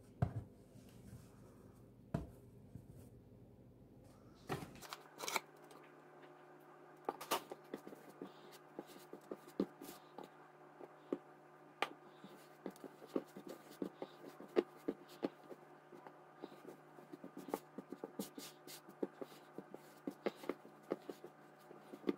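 Hands kneading bread dough on a floured stone countertop: many soft, irregular pats and presses of the dough against the counter. A steady low hum comes on about five seconds in and runs beneath them.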